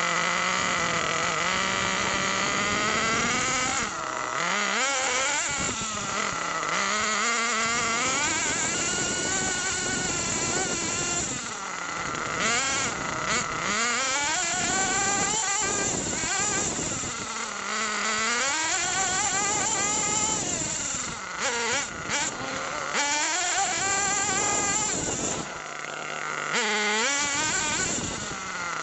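HPI Trophy 3.5 1/8-scale nitro buggy's small two-stroke glow engine, heard close up from a camera mounted on the buggy. It revs up and down with the throttle as the buggy drives, its pitch climbing and then dropping sharply every few seconds.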